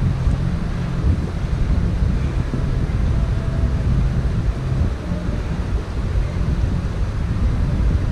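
Wind buffeting the microphone in a steady, uneven low rumble, over a fainter hiss of creek water running across rock ledges.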